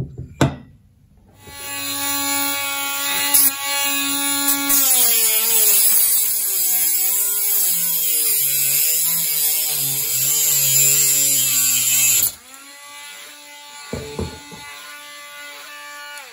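Handheld rotary multitool with a cut-off disc cutting through the protruding threaded rods of an air-spaced variable capacitor: a high motor whine with a grinding hiss, its pitch dropping and wavering under load from about five seconds in. About twelve seconds in the cutting stops suddenly and the tool runs on much more quietly. There are a few light knocks at the start and near the end.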